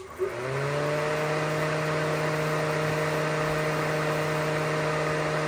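Aftermarket electric radiator cooling fan of the puller type switching on with a click, spinning up within about half a second, then running steadily with a whirring hum. It has been triggered through its new relay by the AC being turned on with the engine off, which shows the relay wiring works.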